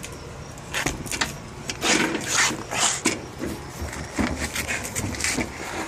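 Footsteps: irregular scuffs and shuffles as a person walks around to the other side of a parked BMX bike.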